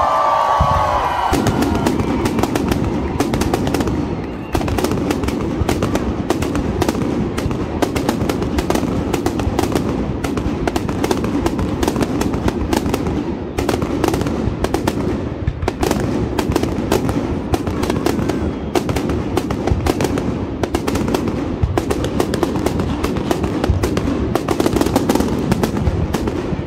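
Fireworks display: a dense, unbroken barrage of aerial shells bursting and crackling, many bangs a second. A whistling rocket's whistle falls slightly in pitch and dies out about a second in.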